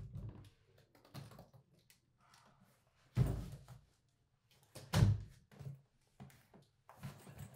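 Footsteps on a floor indoors: a run of slow, uneven dull thumps, the two loudest about three and five seconds in.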